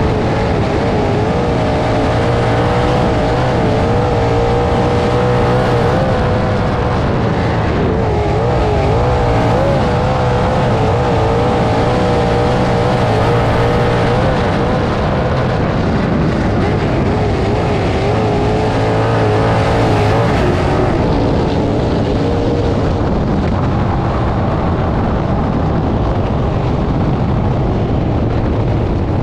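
Sprint car engine at full speed on a dirt oval, heard onboard over a heavy wind rush, its pitch wavering as the car goes through the turns. In the last several seconds the engine eases off as the car slows.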